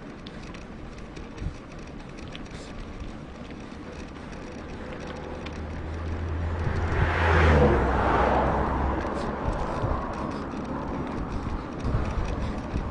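A motor vehicle passes by. Its engine hum and tyre noise build over a few seconds, are loudest around the middle, then fade away.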